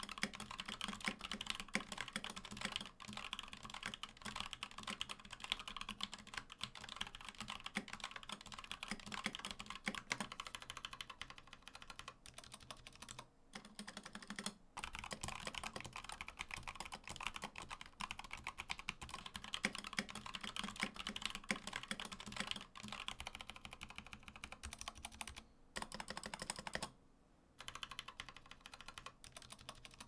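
Continuous typing on mechanical keyboards fitted with Input Club Hako tactile box switches, Hako Violets and then Hako Clears in turn: a steady stream of key clicks and clacks, with two brief gaps where one switch gives way to the other.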